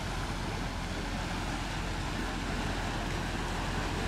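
Wind buffeting the microphone over a steady wash of lakeside water noise.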